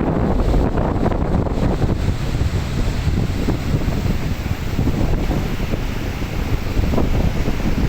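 Strong wind buffeting the microphone in gusts, with surf washing in underneath.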